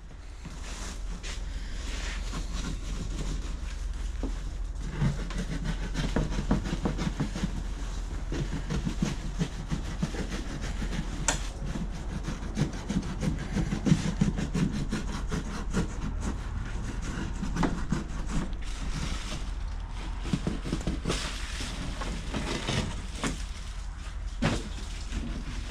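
Old boat carpet and rotten wood being cut and torn up from the deck: continuous irregular scraping, ripping and crackling with many small clicks.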